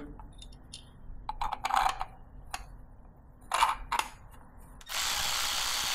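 Small metallic clicks and clinks as two bolts are threaded in by hand, fastening a seal-installation tool to an engine's crankshaft nose. About five seconds in, a loud steady hiss starts and holds.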